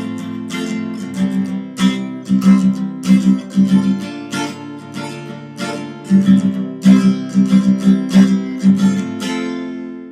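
Acoustic guitar strummed in a steady rhythm, closing a song, with the final chord left to ring and fade near the end.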